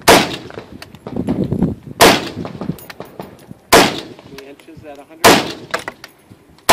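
Colt LE6920 AR-15 carbine with a muzzle brake, firing single aimed shots: four loud cracks spaced about one and a half to two seconds apart, and a fifth at the very end. Fainter knocks follow between the shots.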